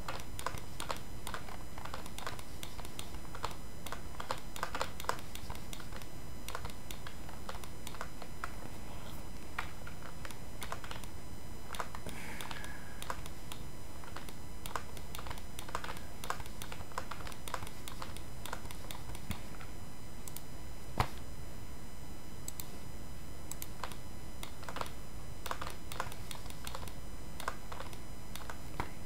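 Scattered clicks of a computer keyboard and mouse, in small clusters with one sharper click about two-thirds of the way through, over a steady background hiss.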